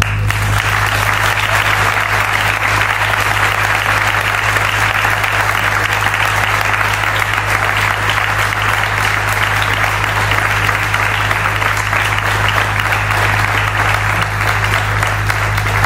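Audience applauding in a long, steady round of clapping, with a steady low electrical hum underneath.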